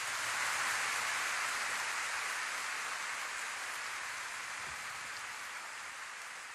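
Concert audience applauding, a steady dense clapping that slowly fades.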